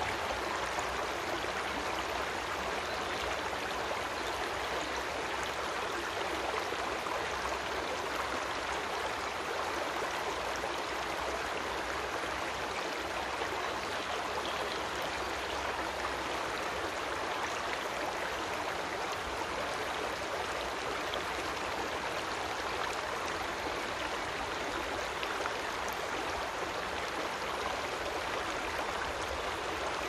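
A creek flowing, a steady, unbroken rush of running water.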